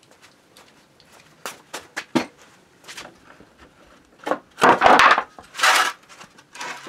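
A person moving about in a garage: scattered light footsteps and knocks, then a few louder scraping, rustling noises about two-thirds of the way through.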